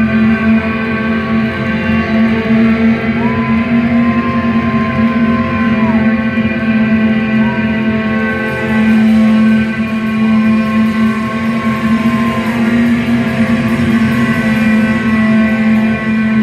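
Live instrumental post-rock played loud: layered, sustained electric guitars over a steady low drone. A high note slides up, holds and slides back down, three times.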